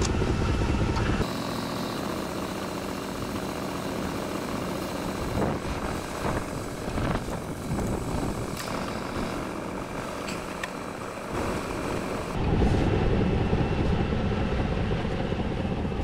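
A truck engine idling steadily under the work, with a few light metallic clicks of an adjustable wrench on a snow plow's hydraulic hose fitting. The low drone changes about a second in and swells again near the end.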